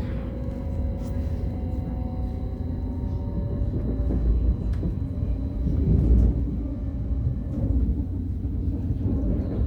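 A train running through a railway station: a steady low rumble, with a faint hum that falls slowly in pitch and a few light clicks.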